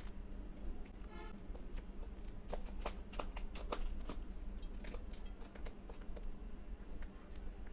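Eating rice and mashed okra by hand from a steel plate: wet squishing as fingers mix and gather the food, alternating with chewing and lip-smacking mouth clicks. A steady low fan hum runs underneath.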